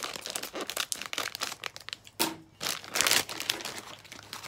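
Clear plastic packaging bag crinkling as it is cut with scissors and pulled open, a string of crackly rustles with the loudest bursts a little past the middle.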